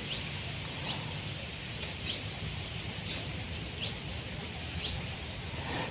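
A bird repeating a short high call about five times, roughly once a second, over a faint steady low rumble of outdoor ambience.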